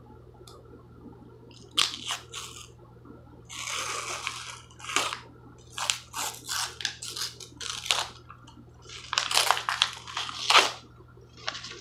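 Paper label being peeled and torn off a cardboard refrigerated-dough canister. It makes a run of irregular ripping and crinkling noises that start about two seconds in and are loudest near the end.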